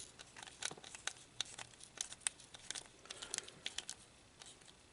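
Small screws being driven by hand into a plastic remote-control housing to hold down a circuit board: a string of faint, irregular clicks and ticks with light scraping.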